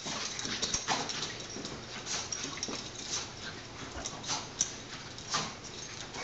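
Boston terrier puppy play-fighting with a stuffed toy: a string of short, irregular dog noises and scuffles.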